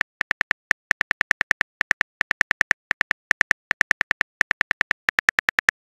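Keyboard typing sound effect from a texting-story app: a rapid run of short, identical clicks, one per letter, in quick groups of four or five as a message is typed out.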